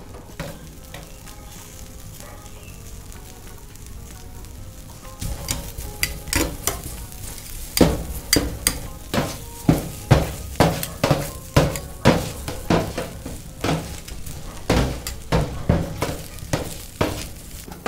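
Stir-fry sizzling on a hot stainless-steel table top. From about five seconds in, a metal cooking utensil strikes and scrapes the steel surface in a run of repeated clacks as the food is tossed.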